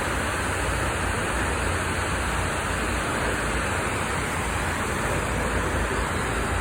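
Outdoor water fountain: falling water splashing in a steady, unbroken rush.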